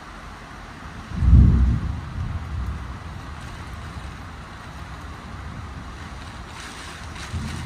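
Stormy wind buffeting the microphone in low rumbling gusts, the strongest about a second in, over a steady rushing noise.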